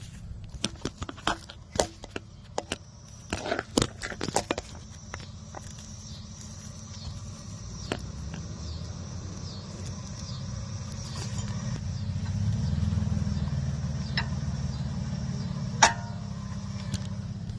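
Sharp metallic clicks and knocks, most of them in the first few seconds and one more near the end, from brake caliper parts and tools being handled over new rear pads. Under them runs a low vehicle hum that swells about twelve seconds in and then eases.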